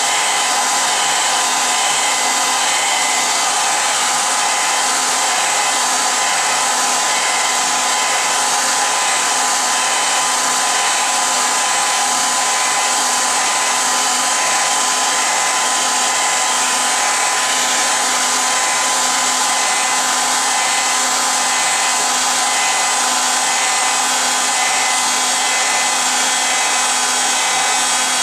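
Steady rushing of an electric blower running continuously, with a faint steady whine under the air noise.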